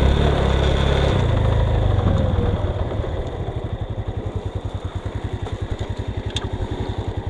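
A motor vehicle's engine running, then dropping about two and a half seconds in to a steady, evenly pulsing idle.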